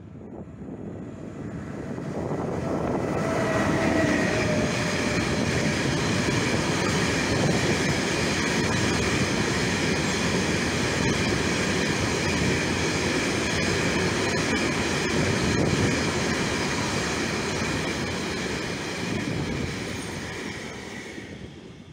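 Freight train of tank wagons passing close, its wheels rolling over the rails in a steady, loud rumble with a high steady tone over it. It builds over the first few seconds and fades near the end.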